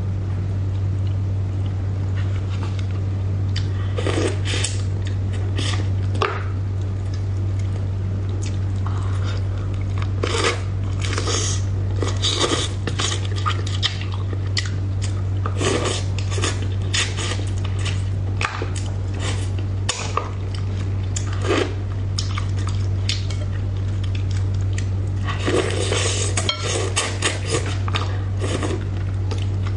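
Close-up eating sounds: chopsticks clicking and scraping against the dish as a braised bighead carp head is picked apart and eaten, with scattered mouth sounds. A steady low hum sits under it throughout.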